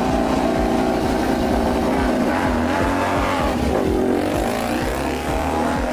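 KTM RC16 MotoGP bike's V4 engine running, its revs dipping about three and a half seconds in and climbing again.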